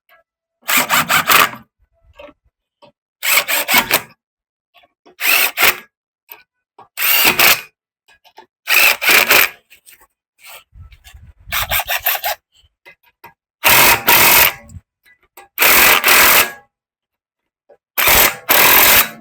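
Ratchet wrench worked in repeated strokes, a short run of clicking about every two seconds, while tightening a new front stabilizer (sway bar) link on a Honda Civic's suspension.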